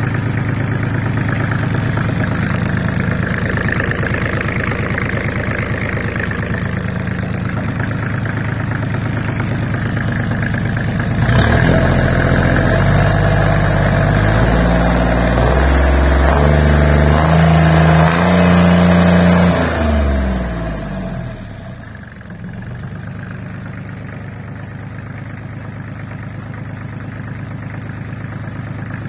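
Volvo Penta D1-30A three-cylinder marine diesel running on a test stand: a steady idle, then revved up about 11 seconds in, with its speed stepping up and down at a louder level, before it drops back to a quieter idle at about 20 seconds.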